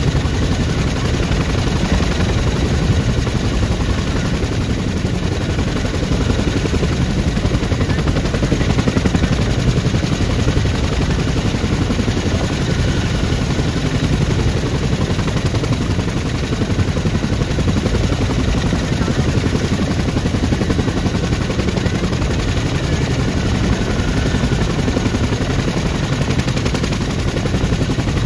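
Boeing CH-47 Chinook tandem-rotor helicopter running on the ground with its rotors turning: a loud, steady, rapid chop of the blades.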